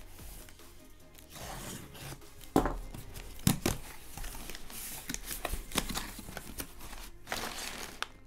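Cardboard shipping box being cut open and unpacked: a cutter scraping through the packing tape, sharp knocks as the box is handled, the flaps being pulled open, then brown packing paper crinkling near the end.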